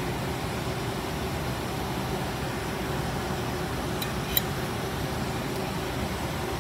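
Steady low mechanical hum, with a light clink of the metal spoon against the plate a little after four seconds in.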